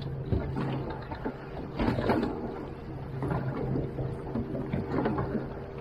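Outboard motor idling steadily, with a few short knocks over it, the strongest about two seconds in.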